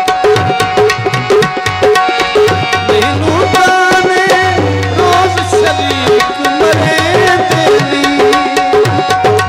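Dholak drum and harmonium playing an instrumental passage. The dholak keeps a fast, steady rhythm while the harmonium holds a drone note and, from about three seconds in, plays a winding melody over it.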